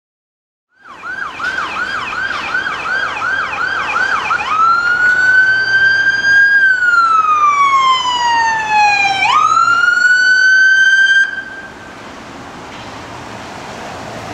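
Ambulance siren sounding on an emergency (Code 3) run: a fast yelp at first, switching about four seconds in to a slow wail that rises, falls and sweeps back up. The siren cuts off suddenly near the end, leaving quieter traffic noise.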